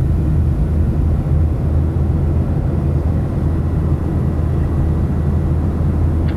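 Boeing 737-800 jet noise heard from inside the passenger cabin: a steady, loud low rumble of its CFM56-7B turbofans and the airflow, with a faint steady whine above it.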